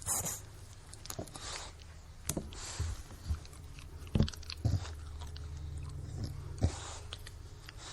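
English bulldog breathing noisily in irregular breaths over a low, steady grunting rumble, with sharp wet mouth clicks and smacks, several in the middle and one near the end.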